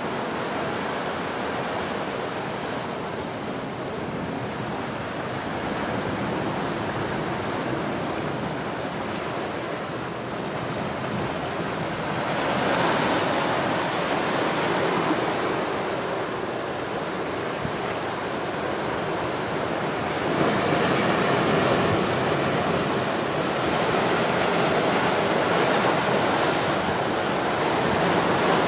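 Ocean surf breaking and washing over rocks: a steady rushing of water that swells louder three times as bigger waves come in, the last near the end.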